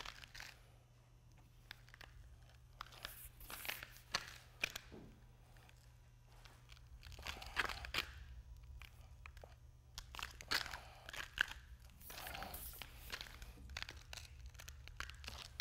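Smoothing paddle being pushed across freshly poured self-leveling urethane-modified cement while spiked shoes step through the wet layer: faint, irregular crackling and scraping swishes over a steady low hum.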